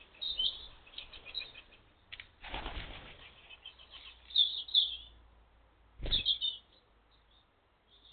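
Birds at a garden bird table: wings flapping in two short rushes, about two and a half seconds in and again about six seconds in, among sharp high chirps, the loudest chirps coming just before the second flap.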